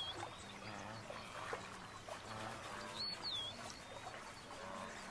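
Faint outdoor ambience by the water, with a bird's short high call that rises and falls. The call comes right at the start and again, the same shape, about three seconds in.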